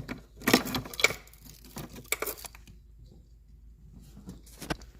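Short metallic clicks and scrapes of a 10 mm wrench loosening the battery cable terminal nuts, in two clusters in the first half, then a few faint clicks near the end.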